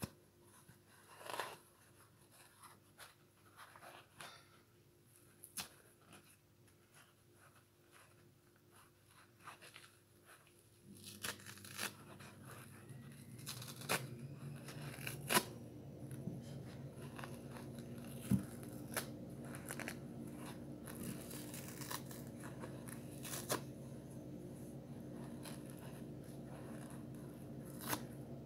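Yellow foam kitchen sponge being plucked and torn apart by fingers, pulled away from its green scouring pad: irregular soft tearing, crunching and little clicks. A steady low hum comes in about eleven seconds in and runs on under the tearing.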